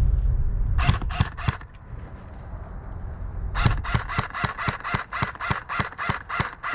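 Airsoft gun firing: a short string of four quick shots about a second in, then steady rapid shots at about four to five a second from midway on. Low wind rumble on the microphone at the start.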